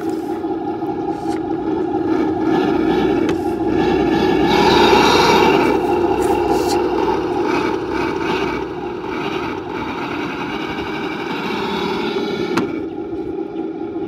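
1:10 scale RC dump truck running with a steady droning hum that swells louder about four to six seconds in, then settles back. A single sharp click comes near the end.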